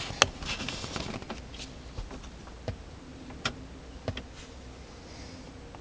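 Scattered light clicks and ticks from a plastic wiring-harness plug and its wires being handled in the fingers, over a faint steady hum.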